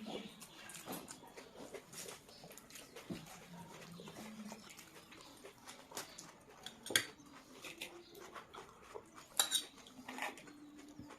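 Eating sounds: scattered sharp clicks of cutlery on a plate with chewing, and a few faint low hums in between.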